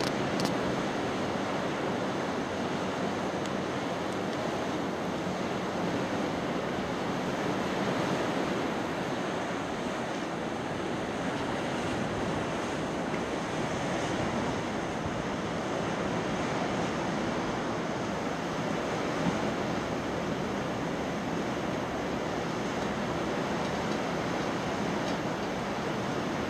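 Ocean surf breaking on the beach: a steady, even rush with no breaks, mixed with some wind.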